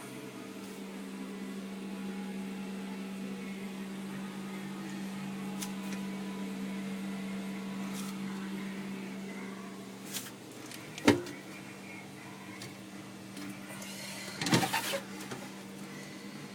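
A steady low mechanical hum, with a single sharp knock about two-thirds of the way through and a short burst of knocks and clatter near the end.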